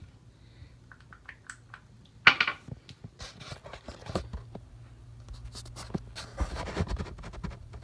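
Handling noise as a phone is moved and set in place: scrapes and light taps against the microphone, with one sharp knock about two seconds in and a spell of rustling near the end.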